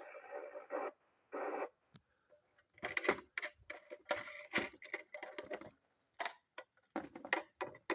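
A CB radio receiver's band-limited static runs for about a second, with a short second burst soon after. Then comes a quick, irregular run of sharp clicks and ticks lasting a few seconds.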